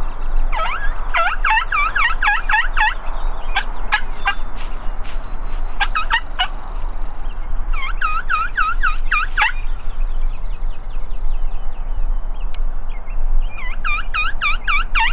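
Wild turkeys gobbling in repeated bouts of fast, rattling gobbles, with a lull of a few seconds after the middle before they gobble again near the end.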